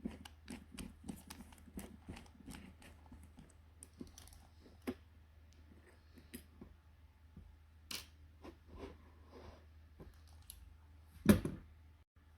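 Irregular clicks, taps and light scrapes of tools and small parts being handled, with one loud knock about eleven seconds in.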